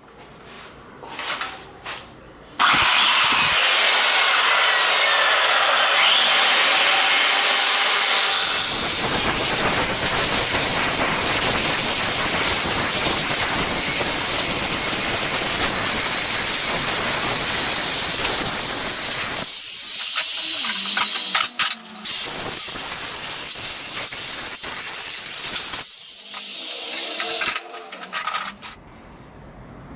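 A power tool running loud, with the hiss and rasp of grinding. It starts a few seconds in and drops away briefly twice near the end.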